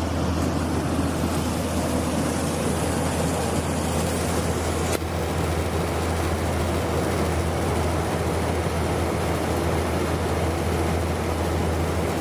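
Air-to-water heat pump running: a steady low hum over a broad, even rushing noise.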